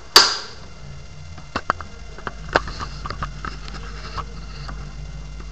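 One loud, sharp snap of the Bauer T-192 Super 8 projector's frame-rate switch (18/24 frames per second) being pressed, followed over the next few seconds by several lighter clicks and knocks of hands handling the projector's plastic body.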